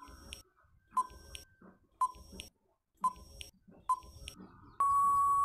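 Quiz countdown timer sound effect: five short beeps about a second apart. Then a longer steady beep sounds near the end as the count runs out.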